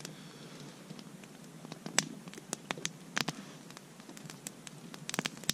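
Small wood campfire crackling, with irregular sharp clicks and pops. A dog is eating dry food from a plastic bowl close by.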